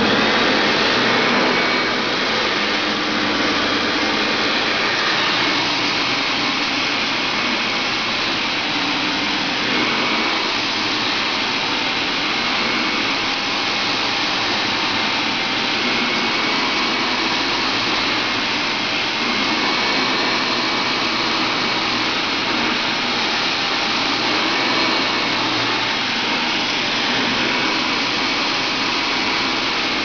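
Hoover Dirt Finder self-propelled upright vacuum cleaner running on dense carpet: a steady rush of motor and airflow with a constant high whine.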